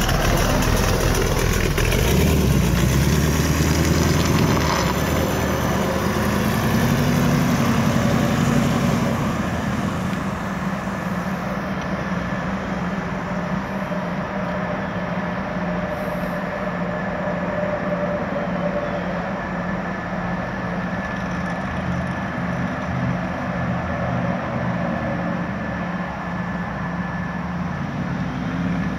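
The T-bucket hot rod's 283 cubic-inch Chevrolet small-block V8 running, loud and rising in pitch as it accelerates over the first several seconds. After about ten seconds it is quieter and steady, heard from farther off as the car drives across the lot.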